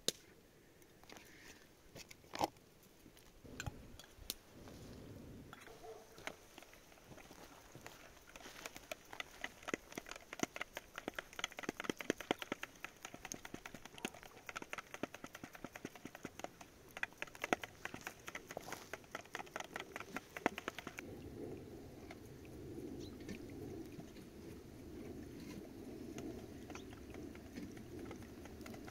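A utensil beating a yogurt-and-egg mixture in a plastic bowl: fast, rapid clicking and tapping in runs, with a few single clicks before it. The beating stops about two-thirds of the way through, leaving a steady low rushing sound.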